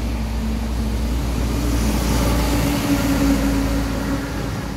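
A large road vehicle, a truck or bus, passing on the wet road: its engine hum and tyre hiss swell to a peak in the middle and fade again.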